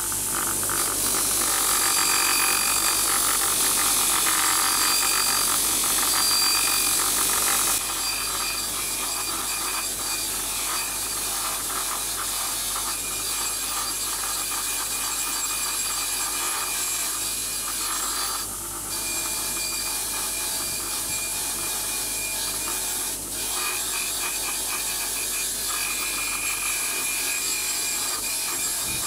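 Bench grinder running while a long steel bolt is held and turned against its spinning wheel: a steady abrasive rasp over the motor's high whine. It is loudest for the first several seconds, drops suddenly about eight seconds in, and dips briefly twice later as the bolt is eased off.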